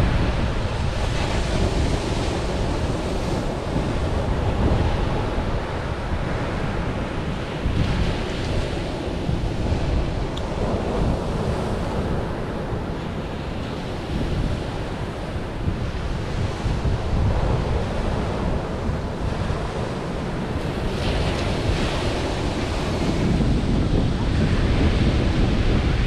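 Waves breaking on a beach, with wind rumbling on the microphone.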